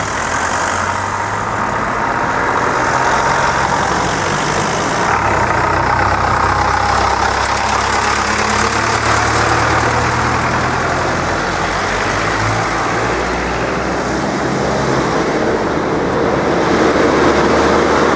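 Cars and lorries driving past, a steady mix of engine noise and tyres on the road.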